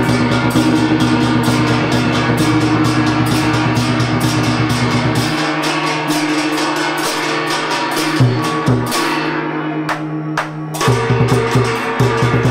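Vietnamese trống chiêng drum-and-gong ensemble playing: a large barrel drum beaten in fast strokes with hand-held gongs ringing over it. About five seconds in the deep drum sound drops away and the strokes thin out, leaving the gongs ringing, before denser striking returns near the end.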